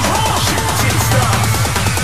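Electronic dance music with a steady beat and a heavy held bass line.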